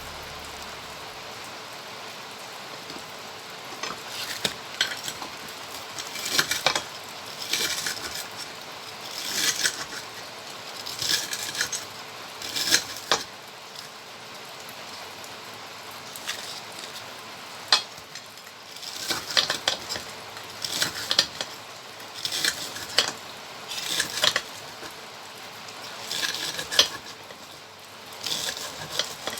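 Food frying in hot oil with a steady sizzle, while a utensil repeatedly scrapes and clinks against the pan in short bursts every second or two.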